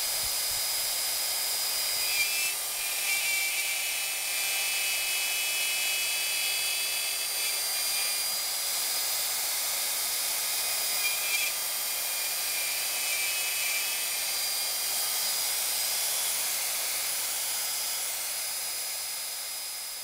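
Rockwell Speedmatic hand router running at speed with a steady high whine while a round-point bit cuts letters freehand into a white oak beam. The sound jumps briefly about two and eleven seconds in, and fades near the end.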